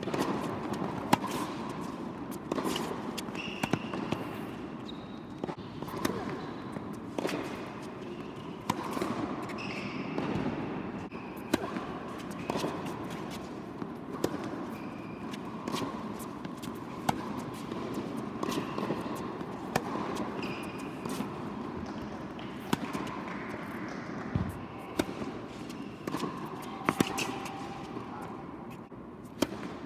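Tennis rallies on a hard court: sharp racket strikes on the ball and ball bounces coming every second or so, with short high squeaks of shoes on the court between them.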